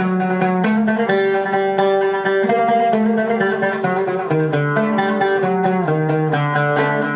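Plucked string instrument playing a quick melody of rapidly picked notes, with a few notes struck each second. It is plausibly a demonstration of the Hijaz mode.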